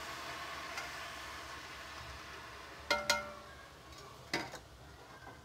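Boiled spinach sizzling in hot oil in an aluminium kadai, the sizzle slowly dying down. About three seconds in, the wire skimmer knocks twice against the metal pan with a short ring, and knocks once more about a second later.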